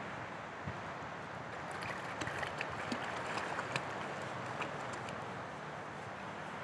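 Steady wash of shallow water, with a run of small light splashes in the middle as a dog steps through the shallows.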